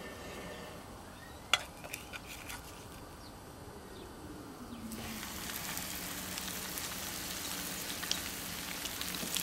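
A few sharp clicks of metal tongs, then about five seconds in a panko-breaded haddock fillet goes into very hot oil in a cast-iron skillet and starts frying: a sudden steady sizzle with scattered crackling pops.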